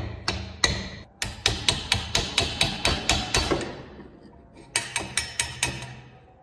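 Quick runs of hammer blows, about five strikes a second, in three bursts with short pauses between them.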